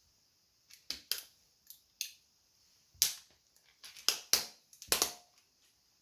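Plastic toy train cracking and crunching under the sole of a Nike Air Force 1 sneaker: a string of sharp cracks, a few around one and two seconds in, a loud one about three seconds in, and a dense run of loud cracks near the end.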